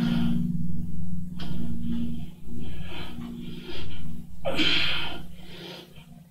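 A man breathing hard from exertion, loud breaths in and out roughly once a second, the strongest near the end; a steady low hum runs underneath.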